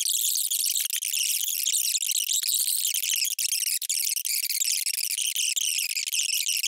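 Debate voices sped up so far that they are no longer words but a dense, high-pitched chattering squeal that runs without a break.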